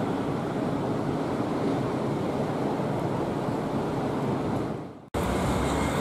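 Steady wash of surf and wind, fading out just before five seconds in; then, after a sudden cut, wind buffets the microphone with a low rumble.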